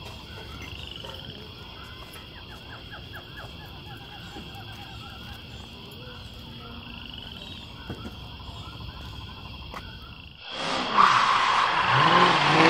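Faint outdoor background of repeated short chirping calls over a steady high hiss. About ten seconds in, a much louder motor vehicle passes close by, its engine note rising as it goes.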